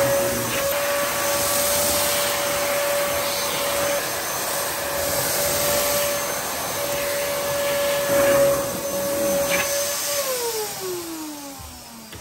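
Dyson DC07 Animal upright vacuum cleaner running with a steady whine over its suction noise while it picks up cornflake crumbs on carpet. About ten seconds in it is switched off and the motor winds down, the whine falling in pitch as it fades.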